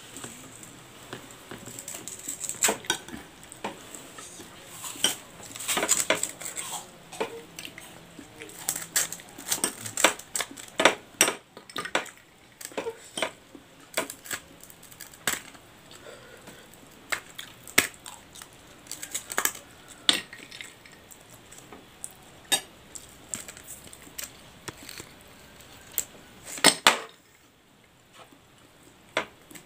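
Spoon and fork clinking and scraping against a ceramic plate while eating, in irregular sharp taps. Near the end comes a brief louder clatter, after which it goes quiet.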